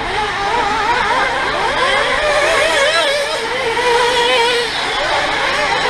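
Motors of several radio-controlled off-road racing cars running together, their pitch rising and falling over and over as the cars speed up and slow down round the track.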